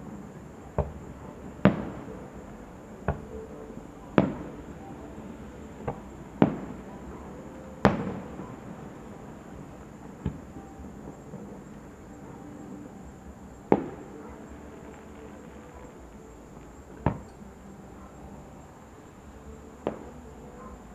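Aerial firework shells bursting in a series of sharp bangs, about eleven in all at irregular intervals, each with a short echoing tail. The loudest come in the first eight seconds; after that the bursts are sparser.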